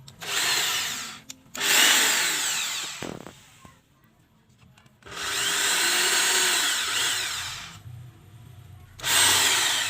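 Electric drill running in four bursts, each winding up and slowing down as it bores into the cage's wood.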